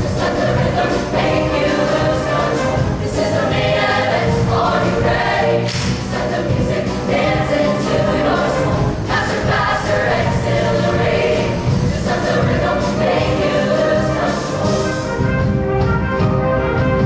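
High-school show choir singing with live band accompaniment; no lyrics are made out in this stretch.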